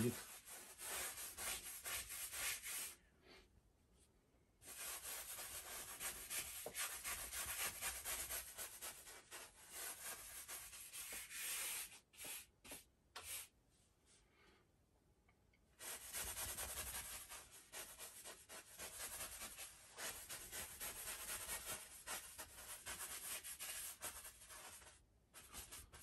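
Stiff bristle brush scrubbing oil paint onto a canvas: fast scratchy strokes in three long runs, with two short pauses between them.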